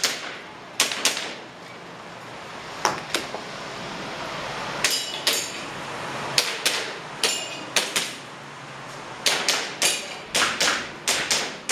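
Airsoft pistol firing, mostly in quick pairs about a third of a second apart (double taps), with a faster string of shots near the end.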